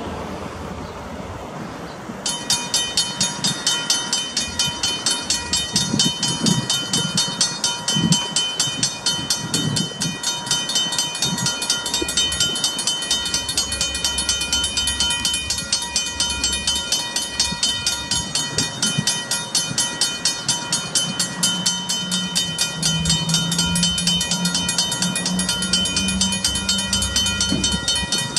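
Level crossing warning bells ringing in a rapid, steady rhythm, starting about two seconds in, over the low running of an approaching KiwiRail DL-class diesel-electric locomotive. The locomotive's engine settles into a steady low hum near the end.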